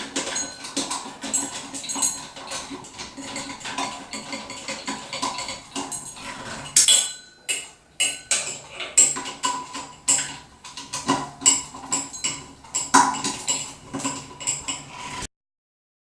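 Irregular metallic clinks and clicks of a screwdriver and screws against a ceiling fan's metal fittings as its blades are screwed back onto the motor. The sound cuts off abruptly near the end.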